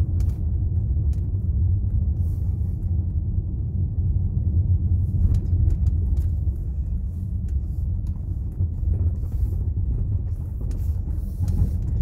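Steady low rumble of a taxi's engine and tyres heard inside the cabin while driving down a rough, narrow country road, with a few faint light clicks and rattles.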